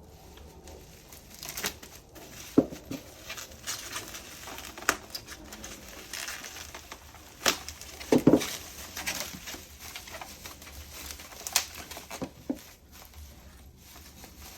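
Packing material and a cardboard box being handled during unpacking: irregular rustling and crinkling, broken by several sharp knocks and thumps.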